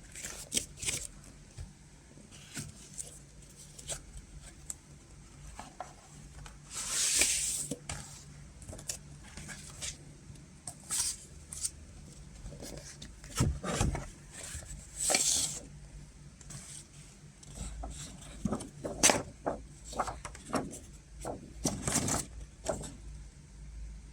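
Hands handling a vinyl record and its packaging: scattered clicks and taps, with two longer rustling swishes about seven and fifteen seconds in.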